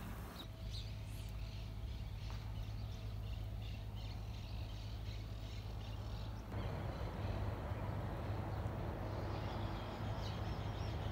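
Small birds chirping repeatedly over a steady low rumble; about six and a half seconds in, the background changes to a louder, even rushing noise.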